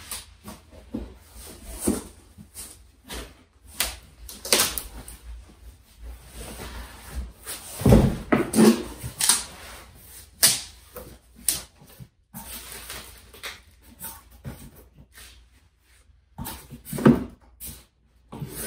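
Cardboard box and its packaging being handled: irregular knocks, thumps and rustling as the box is set down and items are taken out, with the loudest thumps about eight and seventeen seconds in.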